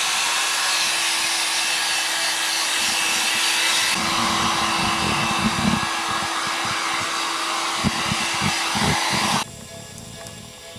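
Handheld hot-air blower running steadily with a constant motor whine, a deeper rush joining about four seconds in, then switched off suddenly near the end.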